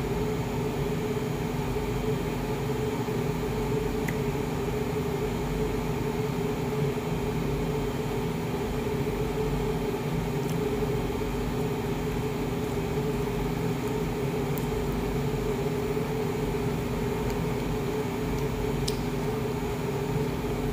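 Steady mechanical hum of a running household machine, with a few faint light clicks.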